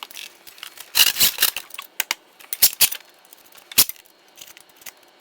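Metal parts clinking and knocking while a drill press is being assembled: a short rattling run of clinks about a second in, then a few single sharp knocks near three and four seconds.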